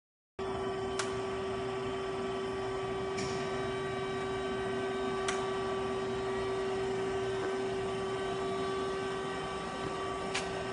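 Steady hum of powered-up machinery, a constant drone with one strong held tone, broken by a few faint clicks.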